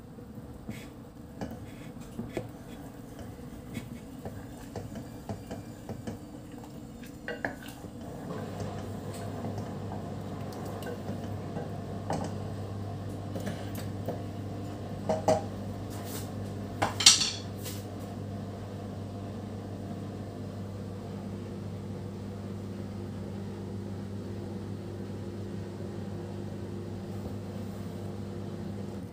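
Wooden spoon stirring and tapping in a stainless steel saucepan of dipping sauce, with scattered light clicks, then two sharper knocks about halfway through that are the loudest sounds. A steady low hum comes in about a third of the way through and carries on underneath.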